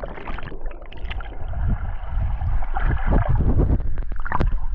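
Muffled underwater bubbling and gurgling picked up by a camera submerged in a swimming pool, with many small ticks of air bubbles and no high sounds.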